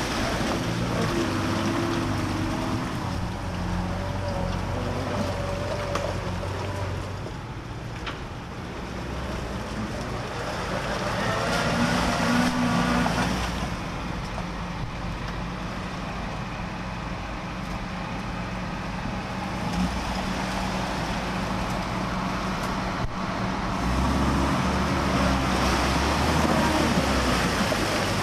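Land Rover Series pickup's engine revving hard under load as it drives through a muddy water hole, with its wheels spinning and throwing up mud and water. The revs rise and fall, loudest about twelve seconds in and again near the end.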